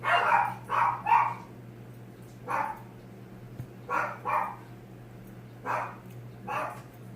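A pet dog barking repeatedly, about eight short barks in uneven groups, the loudest few at the start.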